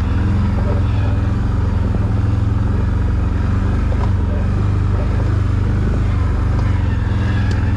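ATV engine running steadily at low trail speed, a low, even drone, with a couple of light knocks about halfway and near the end.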